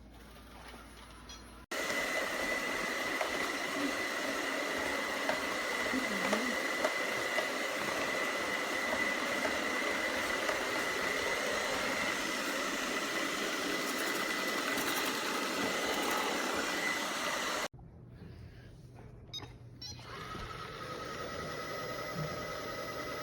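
Robot vacuum cleaner running: a steady machine whir with a constant high whine. It starts and stops abruptly, then a quieter steady hum follows that grows louder near the end.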